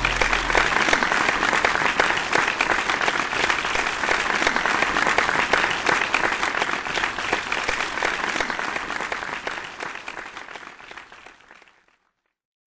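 Audience applause, a dense steady patter of many hands clapping, fading out near the end.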